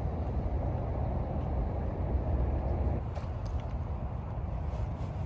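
Steady low rumble of a truck's engine and tyres heard from inside the cab as it pulls in, easing slightly about three seconds in, with a few faint clicks.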